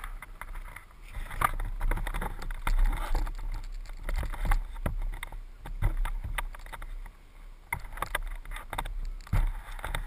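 Handling noise on a camera mounted on a model airplane: irregular knocks and scrapes over a low rumble as the plane is gripped and moved. The propeller is stopped and there is no engine sound.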